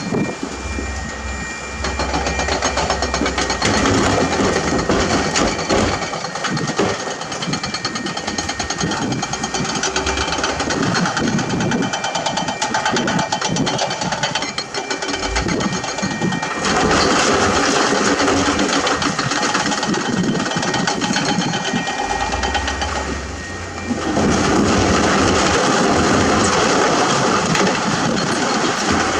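Hydraulic excavator working limestone: diesel engine running under changing load, with continuous clattering and scraping of rock.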